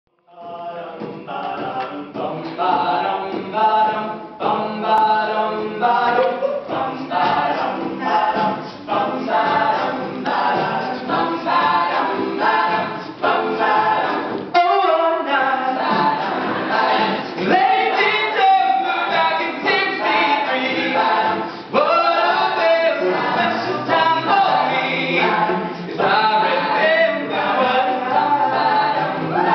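Collegiate a cappella group of men and women singing through microphones, building up over the first couple of seconds. Short repeated chords fill the first half, and the singing changes to a more flowing passage about halfway in.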